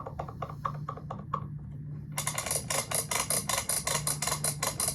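Plastic zord toy clicking: a run of light, evenly spaced clicks, then about two seconds in a louder, rapid rattle of clicks, about ten a second, lasting about three seconds.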